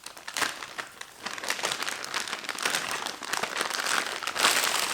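Packing material crinkling and rustling as it is pulled off a roll cage bar, loudest near the end.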